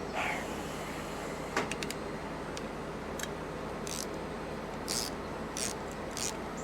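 Scattered light metallic clinks and short scrapes of tools and parts being handled, over a steady low hum.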